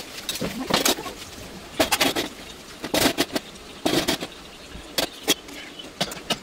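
Steel spatula scraping and knocking against a frying pan while stirring poha, in short strokes about once a second.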